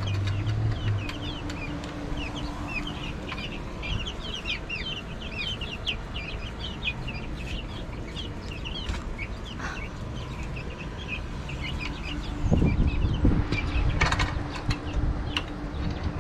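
A flock of young chicks peeping: a dense stream of short, high chirps. From about twelve seconds in, a louder low rumble and a few sharp knocks join them.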